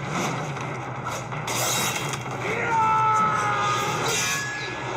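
Martial-arts film sword-fight soundtrack: music under swishing blades and metal striking metal, with a ringing metallic scrape in the middle as steel blades grind together.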